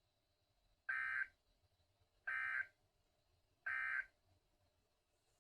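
Three short bursts of EAS SAME digital data tones from NOAA Weather Radio, about 1.4 seconds apart: the end-of-message code that closes a severe thunderstorm warning.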